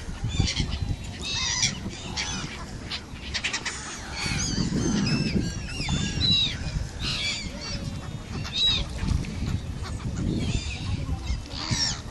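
A flock of gulls calling: many short, high cries that rise and fall, overlapping one another all through, over a low background rumble.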